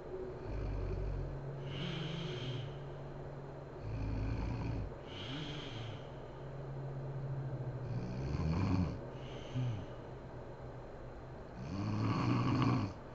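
A sleeping woman snoring, with a low, rough snore about every four seconds (four in all) and breathy exhales between them.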